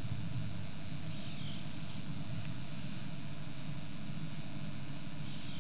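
Safari game-drive vehicle's engine idling with a steady low hum under a constant hiss.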